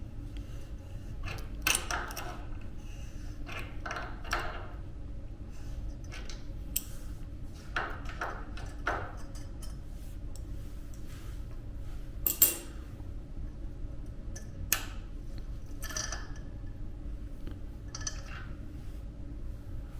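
Irregular metallic clicks and clinks of tools and small metal parts being handled while a hospital bed's extension-section locking mechanism is worked on. The sharpest clink comes about twelve seconds in, over a steady low hum.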